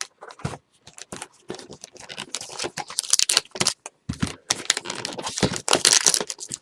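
Trading card packs and cards being handled: foil pack wrappers crinkling and tearing, with many small clicks and taps of cards. The rustling grows busier about two seconds in.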